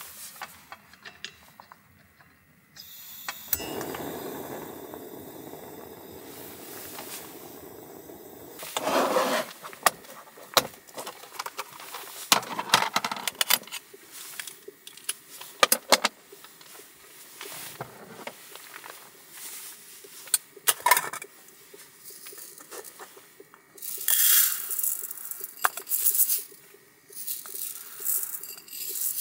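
Kitchen containers handled with sharp clicks and knocks, with a steady hiss for several seconds near the start. Dry rice grains rattle as they are scooped and poured, loudest near the end.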